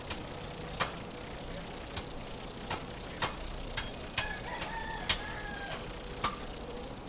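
A fresh green coconut being hacked open with a blade on a wooden chopping stump: about nine sharp chops at uneven intervals, the loudest about five seconds in. A drawn-out pitched call sounds over the chops from about four to six seconds in.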